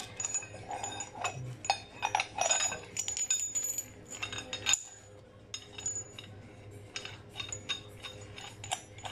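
Loose steel parts and tools clinking and clattering against each other as they are handled, some knocks leaving a short metallic ring. The clinks are busiest in the first half and thin out later. This is the press set-up for a bushing that went in slightly too far being reworked to drive it back out.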